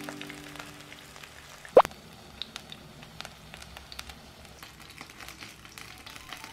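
Batter-coated napa cabbage leaves shallow-frying in oil, a light crackling sizzle with many small scattered pops. A held musical tone fades out in the first two seconds, and one sharp, upward-sweeping click comes a little under two seconds in.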